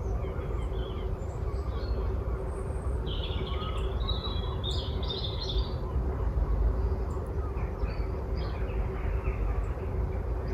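Woodland birds calling and chirping, with a burst of quick high notes about three to five seconds in, over a steady low rumble and a faint constant hum.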